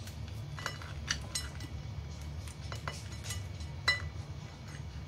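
Kitchen scissors snipping and clicking, with light clinks against a ceramic plate, as the string tie is cut off a crab. A scattering of sharp ticks, the loudest about four seconds in, over a low steady hum.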